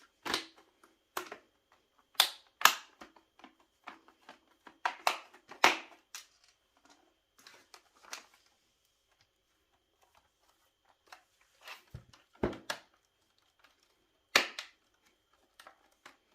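Sharp plastic clicks and knocks of a laptop's bottom cover and casing being fitted back and pressed into place, coming in irregular clusters with pauses between them.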